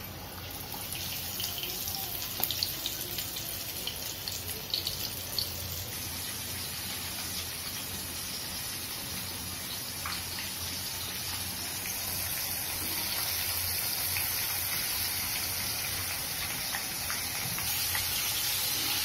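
Chicken drumsticks deep-frying in hot oil: a steady sizzling hiss with scattered crackles in the first few seconds, growing louder about twelve seconds in.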